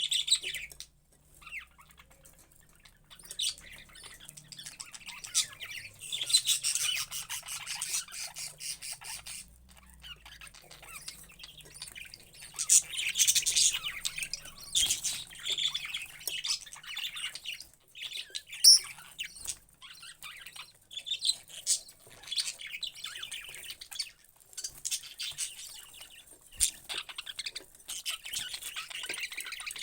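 Parrots chirping and chattering in repeated bursts, with occasional sharper squawks; one loud, sharp call about two-thirds of the way through.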